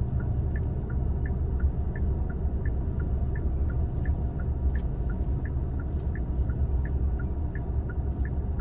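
Car turn-signal indicator ticking in the cabin, about three even clicks a second alternating tick and tock, over the steady low rumble of the car creeping along at low speed.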